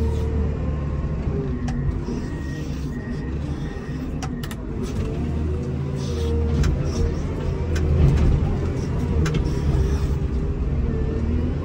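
Komatsu WA270 wheel loader's diesel engine running under load as it pushes snow, heard from the cab, its pitch rising and falling with the throttle and loudest about eight seconds in. A few sharp clicks sound over it.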